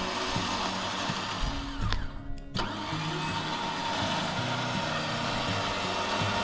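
Warn Evo 12K electric winch motor running steadily, spooling in its line under power from its solenoid. It stops briefly about two seconds in, then starts again.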